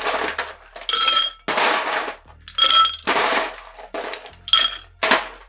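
Ice cubes clattering and clinking in a glass mixing glass, in five or six separate bursts of a second or less, the glass ringing in several of them.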